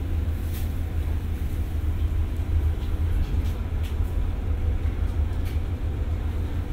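Diesel train standing at a station platform, a steady low rumble with a few faint clicks over it.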